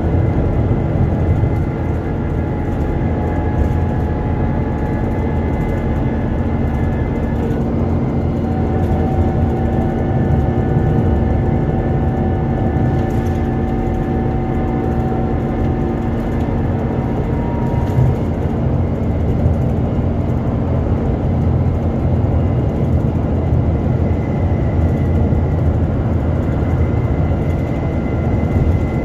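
Alexander Dennis Enviro 400 double-decker bus on a Trident chassis, heard from inside the passenger saloon while driving: a steady low engine and road rumble with several whining driveline tones that change pitch about eight seconds in. A single brief knock comes about eighteen seconds in.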